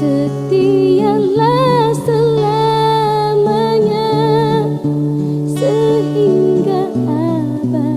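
Indonesian pop ballad music: a wordless melody line with vibrato over sustained bass and chord notes.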